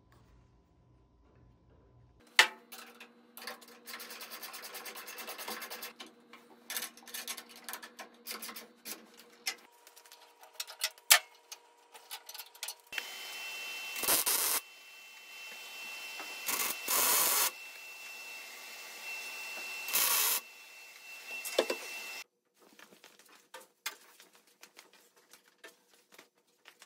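MIG welder crackling through a series of short welds on steel, the loudest bursts each lasting about half a second.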